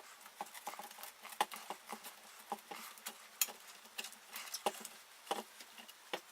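Irregular light clicks and taps of hands handling scooter handlebar and grip parts.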